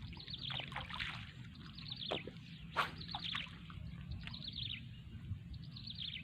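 Birds calling: clusters of quick chirps that fall in pitch, over a low steady rumble, with one brief sharp sound a little under three seconds in.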